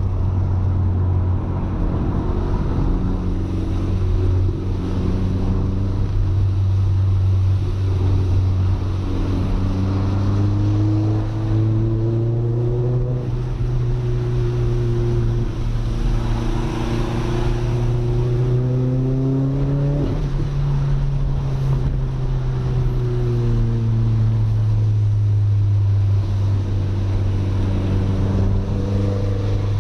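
Audi A3 1.8T's turbocharged four-cylinder engine running steadily while the car drives, heard from inside the cabin. The engine note climbs gradually from about a third of the way in, peaks around two-thirds, then settles back down.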